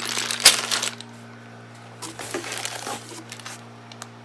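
Clear plastic bag of small metal racking hardware crinkling as it is handled and lifted out of a cardboard box, in two bursts, the louder one about half a second in.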